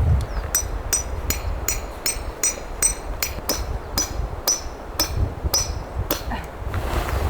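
Hammer driving a metal tent peg: a run of quick ringing blows, about three a second, that stops a little after six seconds in.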